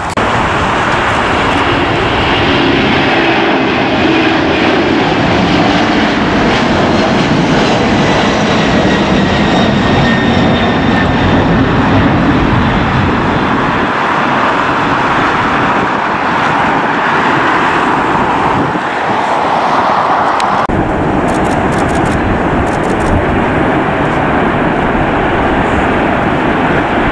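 Jet airliner engines running loudly: a broad, steady rumble with a thin whine that slowly falls in pitch. The sound changes abruptly about three-quarters of the way through.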